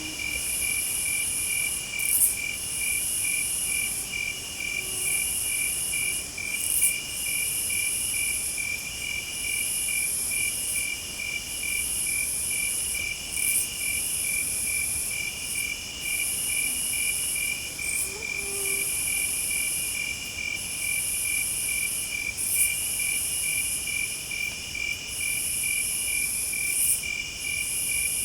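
Night insects chorusing in several layers: a steady fast-pulsed trill, a mid-pitched chirping that comes and goes, and a high buzzing in repeated phrases of about a second and a half with short breaks between them.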